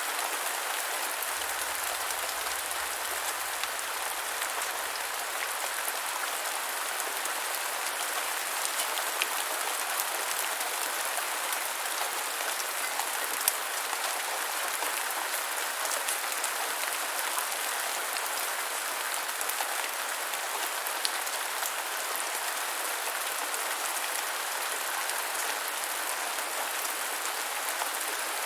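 Steady medium rain falling on a surface, a dense even patter with scattered individual drop ticks, one sharper about halfway through.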